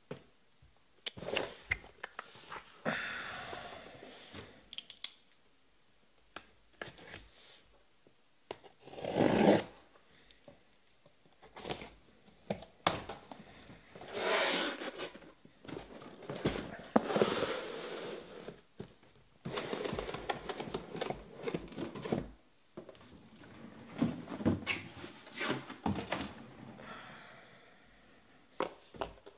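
A cardboard shipping case being opened and unpacked: irregular scraping, tearing and rustling of cardboard, with sharp clicks and knocks as the boxes inside are pulled out and set down in stacks.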